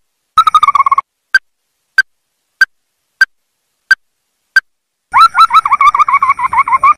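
Ruddy-breasted crake calling: short, sharp single notes about every 0.6 s, a quick run of notes near the start, and a fast series of repeated notes from about five seconds in.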